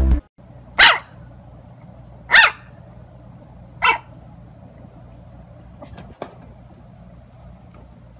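Black-and-white bulldog puppy barking three times, short high barks about a second and a half apart.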